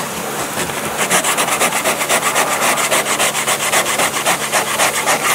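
60-grit sandpaper rubbed by hand over a car's plastic door trim, scouring off hardened mounting foam. Quick back-and-forth scraping strokes, several a second, start about a second in.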